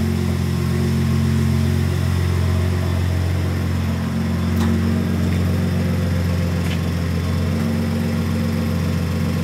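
A machine running with a steady low drone, with two faint clicks about four and a half and six and a half seconds in.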